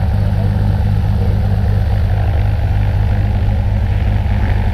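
Cessna 182 Skylane's six-cylinder piston engine and propeller running steadily at ground idle, heard close up as an even low drone.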